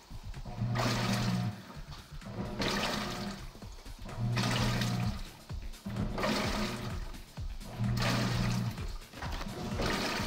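Haier HLP21N portable washing machine agitating: its motor hums in strokes about every second and a half to two seconds as the wash plate turns one way and then the other. Water swishes and churns in the tub with no clothes, on a low water level.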